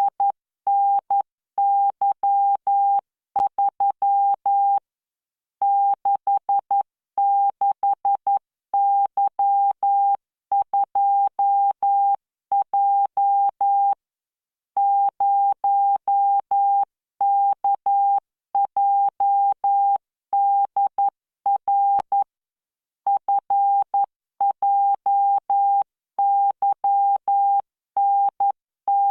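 Computer-generated Morse code practice tone: a single steady beep keyed on and off into dots and dashes at 11 words per minute, with short gaps between characters and a longer pause about fourteen seconds in.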